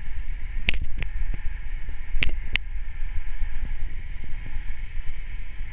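Wind buffeting the microphone over the faint steady high whine of a radio-controlled model helicopter flying at a distance, with four short sharp chirps in the first three seconds.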